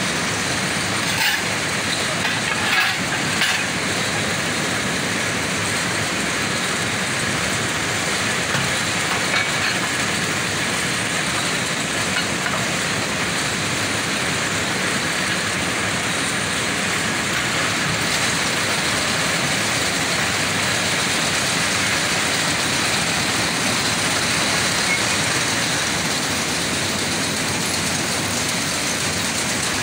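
Steady din of jute mill processing machines running, with a few sharp knocks in the first few seconds.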